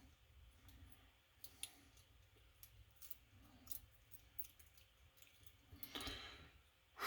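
Faint, scattered small clicks of lock pins, springs and tools being handled while a Lockwood lock cylinder is taken apart, with a soft rustle near the end.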